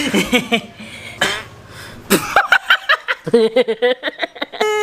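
People's voices: short exclamations, then a rapid stuttering vocal pulsing, and a long steady held note beginning near the end.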